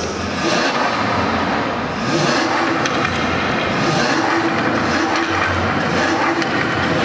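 Lamborghini Aventador's V12 engine running at the exhaust, a loud, steady sound with no clear revving.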